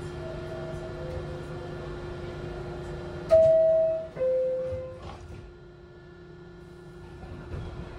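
New York City subway car's two-note door-closing chime, a falling 'bing-bong' that signals the doors are about to close. A faint chime sounds first, then a loud one about three seconds in, over a steady hum in the car.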